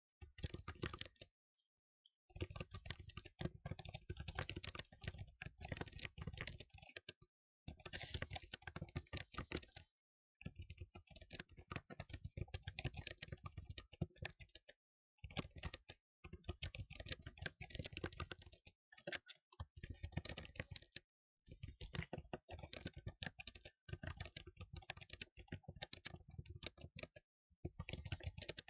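Fast typing on a computer keyboard, many keystrokes a second, in runs of a few seconds broken by brief silent pauses.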